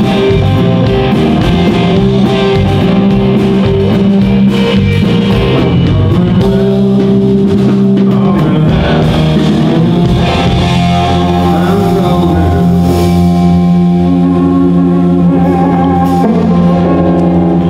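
A live blues-rock band playing loud on electric guitars and drum kit. The drum hits thin out about halfway through while the guitars hold long ringing notes.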